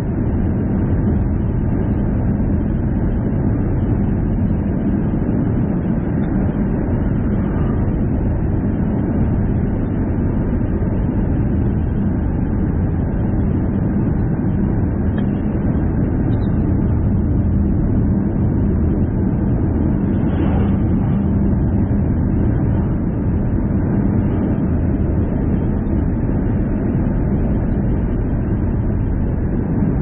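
Car driving at a steady speed on a highway: constant tyre and engine noise with a steady low hum, unchanging throughout.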